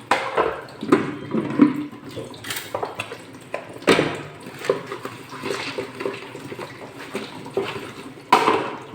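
Water running in a sink while dishes are washed by hand, with plates and utensils clattering now and then.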